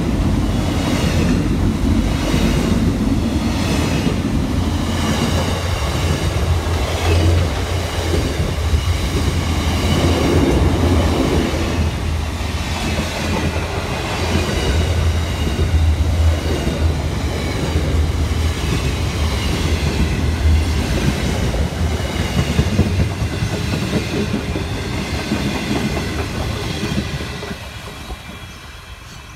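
Container freight train wagons rolling past close by: a steady loud rumble of steel wheels on rail with a clickety-clack rhythm, fading near the end as the last wagons go by.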